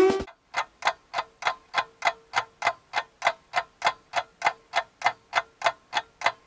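Clock ticking sound effect, an even run of about three ticks a second, standing for the timed simmer of the covered curry.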